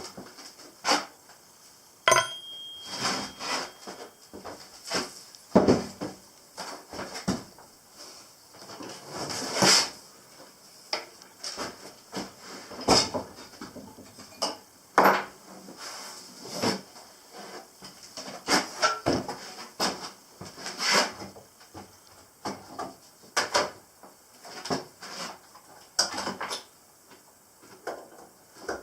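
Irregular clatter and knocks of tools and hard objects being handled and moved about while a big electric drill is dug out and set up; the drill itself does not run.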